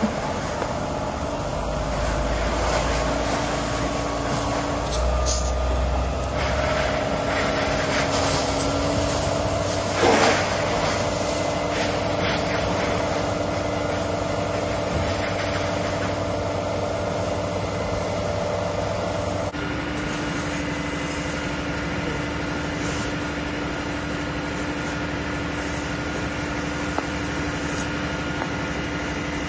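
A fire engine runs steadily with its even engine and pump hum, under the hiss of a hose spraying water onto a burning vehicle. There is a brief louder burst about ten seconds in.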